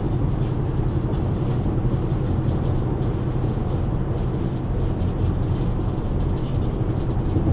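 Steady road and engine rumble heard inside a truck's cab moving at highway speed, even throughout.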